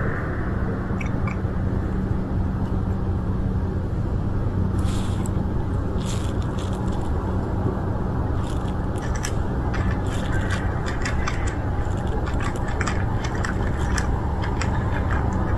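Cat crunching dry kibble, with rapid irregular clicks of chewing starting about five seconds in and growing denser, over a steady low hum.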